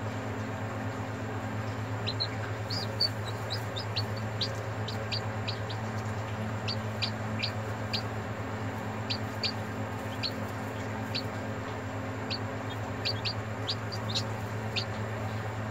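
Chick peeping from a pipped egg as it hatches: short, high, falling peeps, one or two a second, starting about two seconds in, over a steady low hum.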